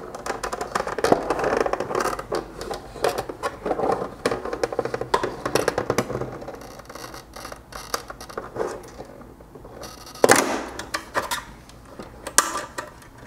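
Plastic tail light lens and housing creaking, clicking and scraping as they are pried apart by hand, with a louder crackle about ten seconds in.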